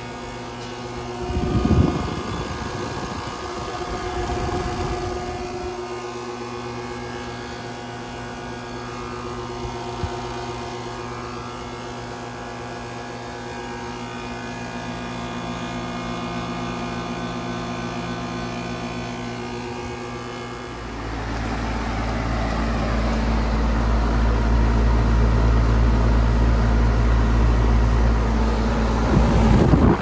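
Outdoor central air conditioner condenser units running: a steady compressor hum with the whir of the condenser fan, holding several fixed tones. About two seconds in there is a brief low thump. About 21 seconds in the sound becomes louder and deeper, with a strong low hum.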